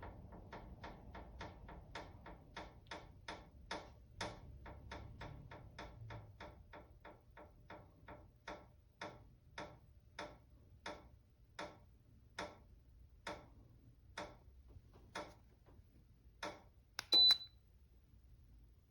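Dreo oil-filled radiator heater ticking steadily, the ticks slowing from about three to about one and a half a second, then a short high electronic beep from its controls near the end.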